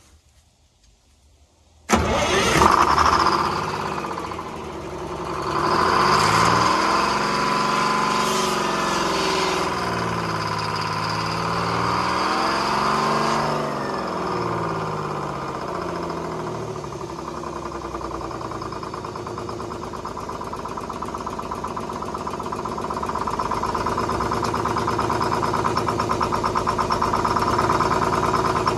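A Detroit Diesel two-stroke diesel engine catching without ether about two seconds in, after its stuck injector racks were freed. Its engine speed rises and falls unevenly for about ten seconds, then it settles into a steadier idle.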